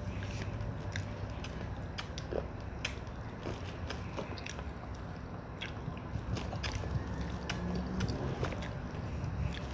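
A person biting and chewing fried saba banana, with many short, sharp mouth clicks and smacks over a steady low hum.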